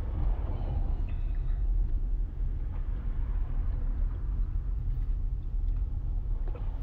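Steady low rumble of engine and road noise heard inside a car's cabin.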